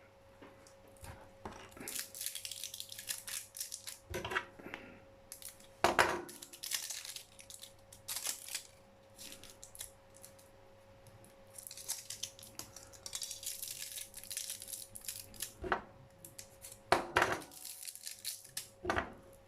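Outer plastic jacket and inner wrapping of an Ethernet cable being cut and stripped by hand: stretches of rustling, scraping plastic broken by several sharp snips.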